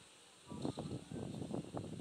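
Felt-tip marker drawing on a sheet of paper on a wooden table: a quick, irregular run of scratchy, rubbing strokes that starts about half a second in.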